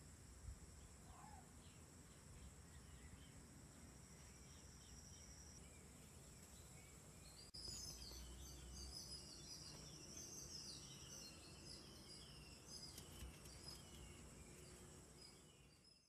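Faint outdoor ambience: insects trill steadily and birds chirp. After a sudden break about halfway, the birds chirp more busily.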